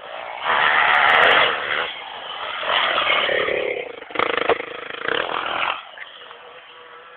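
Dirt bike engine revving hard as the bike rides away over rough woodland ground, loudest in the first second or two and dropping off sharply about six seconds in.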